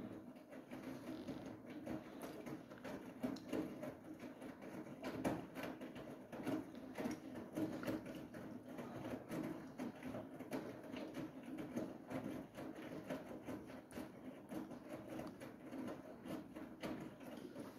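Siemens iQ700 front-loading washing machine in its final spin cycle, starting abruptly from silence: the drum turns with a steady low hum and dense, irregular rattling and clicking.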